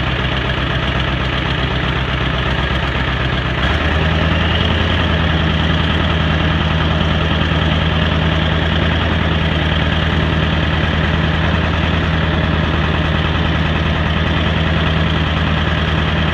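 Ford 7.3 Powerstroke turbo-diesel V8 in a 2001 F-250 idling steadily after a cold start on a cold morning, the engine still cold after two weeks unused. About four seconds in, the engine note shifts and gets slightly louder, then holds steady.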